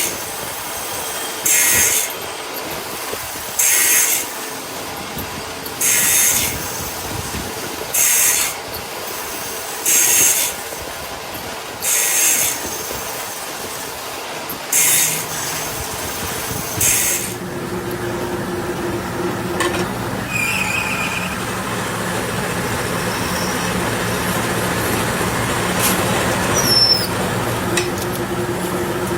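Workshop machinery: a high hissing or grinding sound comes in short bursts about every two seconds, eight times. It stops about 17 seconds in and gives way to a steady machine hum with a held tone.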